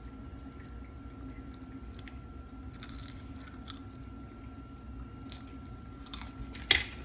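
Faint sticky squishing and small crackles as microwaved, puffed-up Peeps marshmallow candies are handled and bitten into, with one sharp click near the end.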